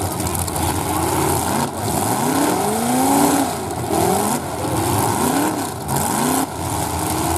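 Demolition derby car engines revved hard up and down over and over, about once a second, with more than one engine overlapping at times, as the cars wedged together strain against each other.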